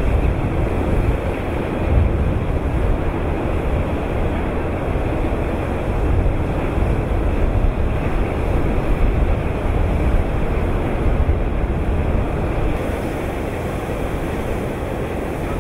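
Steady rumbling roar of a shiploader at work loading iron ore into a ship, mixed with wind buffeting the microphone.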